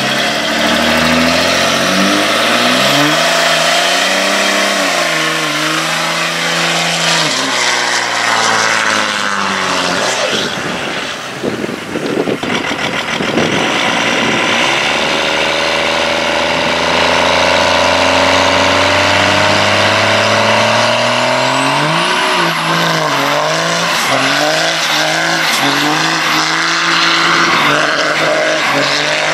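Diesel pickup truck engines revving hard and repeatedly during burnouts, over the steady rushing hiss of spinning tyres on pavement. Near the end a high whine climbs and rises and falls with each rev.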